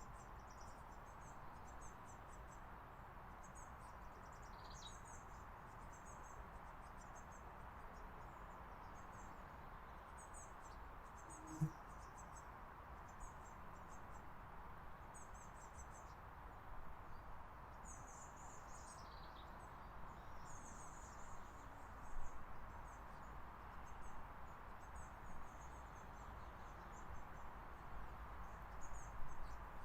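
Faint, very high-pitched chirps and ticks in quick clusters over a steady background hum, with a few short falling notes and one sharp click about twelve seconds in.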